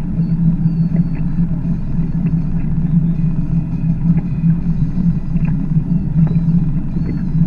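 A 21-foot Chaparral bowrider's engine running steadily under way, a constant low drone heard from the bow, with wind rumbling on the microphone.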